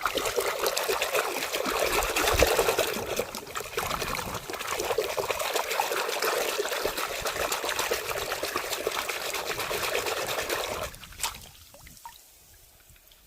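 Water running steadily, stopping suddenly about eleven seconds in, followed by a single click.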